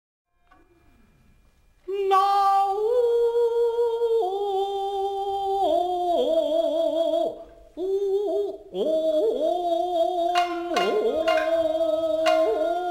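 Japanese classical dance music of the nagauta kind: a singing voice holding long, wavering notes that slide between pitches, starting about two seconds in, with a few sharp shamisen plucks near the end.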